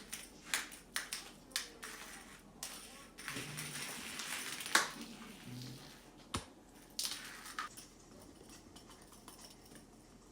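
Cats at close quarters: scattered clicks and knocks of paws and bodies, short bursts of hissing, and two brief low growls.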